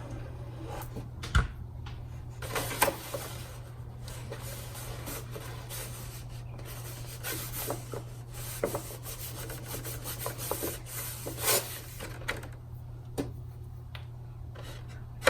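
Cardstock paper petals being handled and rubbed while a paper rose is shaped: scattered rustles with a few sharp taps, over a steady low hum.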